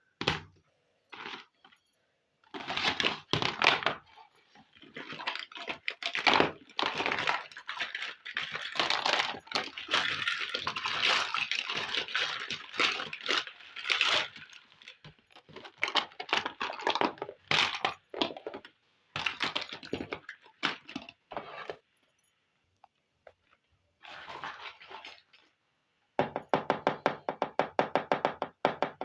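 Hands unboxing and handling a miniature plastic toy kitchen set: packaging crinkling and small plastic pieces clicking and clinking, with a quick run of clicks near the end.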